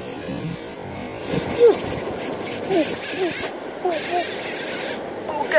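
Steady wash of sea surf breaking on rocks, with wind noise. Over it come a few short, falling cries.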